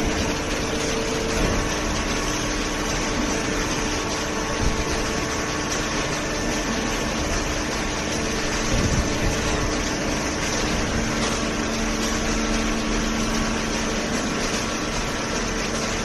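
A horizontal cardboard baler line and its inclined feed conveyor running: a steady mechanical hum with a few held tones in it.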